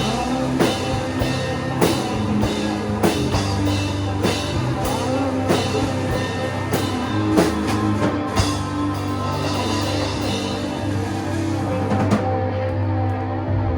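Shoegaze rock song played by a full band: drum kit keeping a steady beat under guitars and bass. Near the end the drums and cymbals drop out, leaving the guitars.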